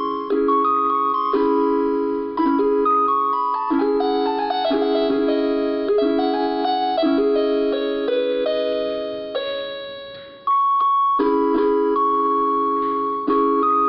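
Portable electronic keyboard being played: held chords under a melody line. A run of notes steps downward through the middle, there is a brief pause about ten seconds in, then the chords come back in.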